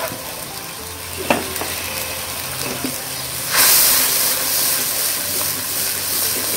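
Onion and chili-powder masala sizzling in hot oil in a wok while a wooden spatula stirs it. There is a light knock about a second in, and the sizzle gets louder a little past halfway.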